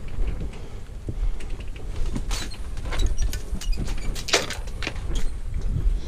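Steel safety chain clinking and scraping against rock as a gloved climber grips and pulls on it: a run of sharp, irregular clicks and knocks over a low rumble.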